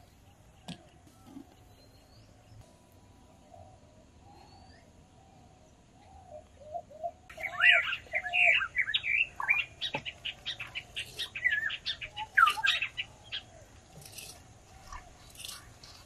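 Birds chirping: faint for the first half, then a loud burst of many quick chirps about halfway through that lasts several seconds before thinning out.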